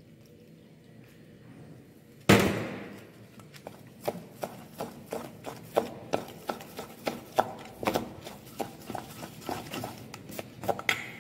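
Batter being mixed by hand in a stainless steel bowl: a sharp knock about two seconds in, then a quick, uneven run of clicks and taps of the hand and bowl against the metal.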